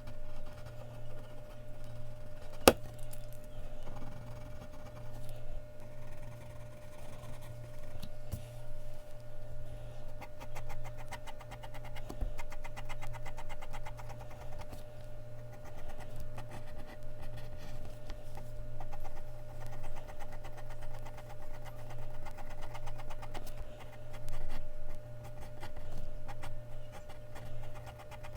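Mechanical pencil scratching on Bristol paper in quick, repeated shading strokes, over a steady low hum. A single sharp click a little under three seconds in.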